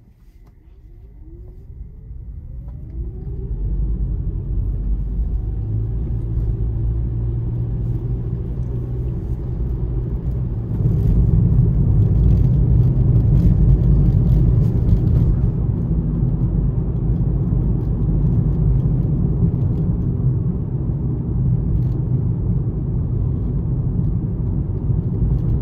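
Car pulling away: an engine tone rising in pitch over the first few seconds, then a steady low rumble of engine and road noise that grows louder about eleven seconds in.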